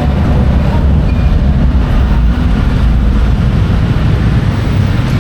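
Steady, loud low rumble of road traffic crossing the bridge.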